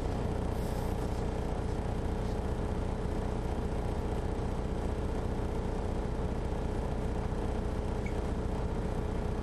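Detroit Diesel Series 60 engine of a 2001 MCI D4000 coach running steadily, heard from inside the bus: an even low drone with a steady hum that holds without change.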